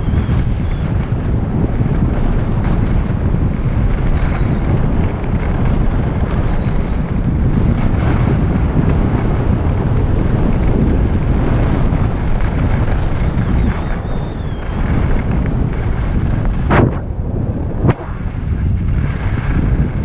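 Heavy wind buffeting the microphone of a camera moving fast downhill on a ski slope, a steady low rumble. Two sharp knocks about a second apart near the end.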